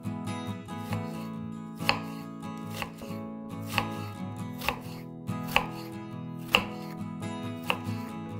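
Chef's knife slicing through an onion half and knocking on a wooden cutting board, one sharp knock about once a second, with soft music underneath.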